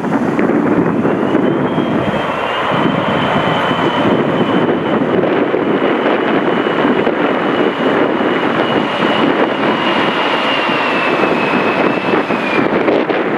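Boeing 737-300's CFM56 jet engines running loud on landing: a steady rumble with a high whine that rises in about a second in, holds with a slight fall in pitch, and drops away near the end.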